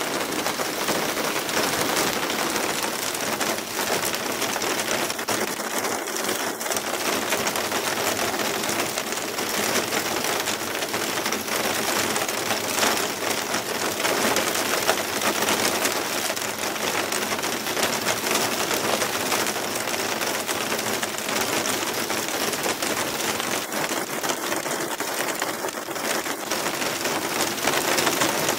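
Hailstorm with heavy rain: hailstones and rain pelting terracotta roof tiles and the ground in a dense, steady clatter of countless small impacts.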